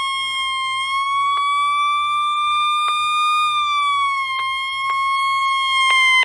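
A weather radio receiver sounding its alert alarm: a single loud, steady high-pitched tone that wavers slightly in pitch and cuts off suddenly at the end. This is the tone the radio gives to signal an alert, without playing the broadcast.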